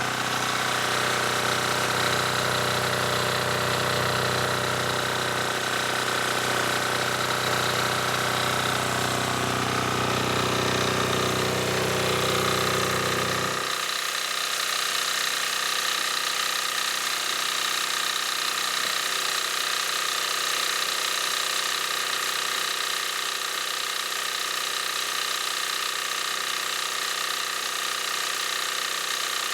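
ETQ DG7250LE diesel generator running steadily with a deep hum and a higher whine. About halfway through, the deep hum drops away abruptly while a steady higher-pitched whine carries on.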